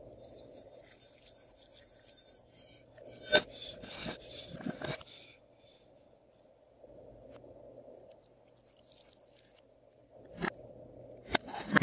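Thick slime pouring softly from a cup into a glass baking dish. About three to five seconds in comes a louder burst of clicks and scraping as a slime container is handled, and near the end there are more clicks and clatter as pink slime is tipped from its container.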